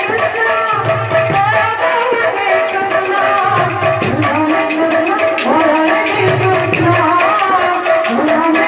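Music: a curving melody over low drum strokes about once a second, with jingling percussion on top.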